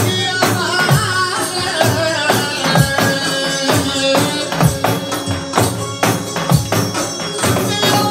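Tallava music played on a Roland electronic drum kit: a deep drum stroke about once a second under quicker, lighter hits, with a wavering melody line on top.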